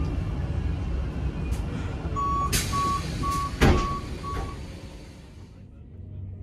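Door-closing warning beeps on a DSB IR4 electric train: five short high beeps, about two a second. A heavy thump about midway through is a door shutting. Under a steady low rumble, the background hiss dies away near the end as the doors close.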